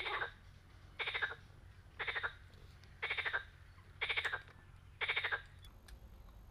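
A frog croaking in the reeds in a steady rhythm, about once a second, each croak a short rasp; the croaking stops near the end.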